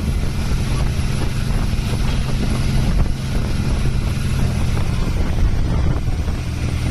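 Motorboat engine running steadily at speed while towing a parasail, heard from on board, with wind noise on the microphone.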